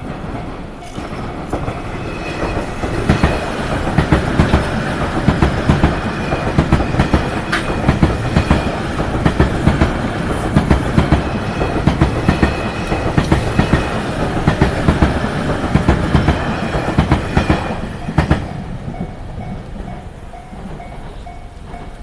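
Train passing through a railway level crossing, its wheels clacking rhythmically over the rail joints for about seventeen seconds, then fading away. A Japanese level-crossing warning bell rings with a repeating two-tone chime before and after the train, and is left ringing alone near the end.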